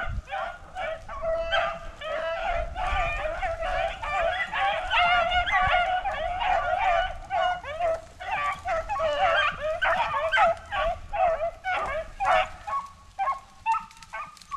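A pack of beagles baying together in full cry on a rabbit's trail, many voices overlapping. Near the end the cry thins to a few separate barks, then stops.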